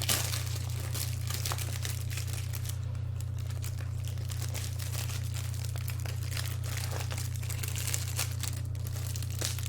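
Packaging crinkling as a book is unwrapped and handled: a dense run of small irregular crackles. A steady low hum runs underneath.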